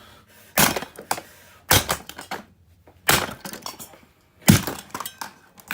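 Four hard blows smashing the plastic body of a Dirt Devil race car vacuum, about a second and a half apart, with plastic cracking and breaking and bits clattering after each strike.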